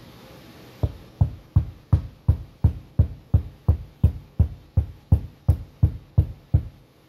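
Music: a steady kick-drum beat, a little under three beats a second, with a light high tick on each beat. It stops shortly before the end.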